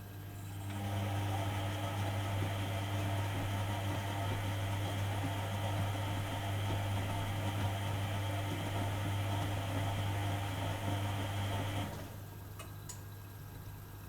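Privileg Dynamic 4612 washing machine running mid-wash: a motor starts about a second in and runs with a steady hum for about eleven seconds, then cuts off abruptly, leaving a quieter steady background.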